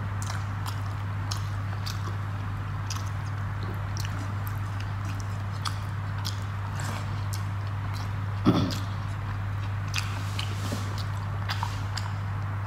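A person chewing and eating rice and fish curry by hand: soft, scattered wet mouth clicks and smacks over a steady low hum. About eight and a half seconds in there is one short sound from the throat, the loudest moment.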